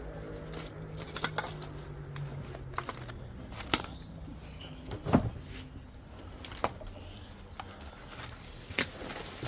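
Irregular knocks and clicks, with two louder knocks about four and five seconds in, over a low hum that fades out about two seconds in.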